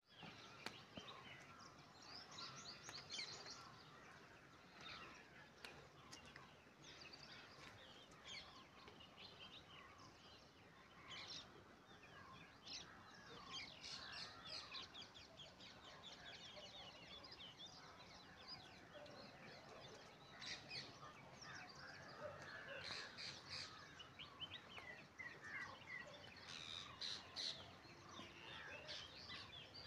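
Faint chorus of birds chirping in the background, many short overlapping calls.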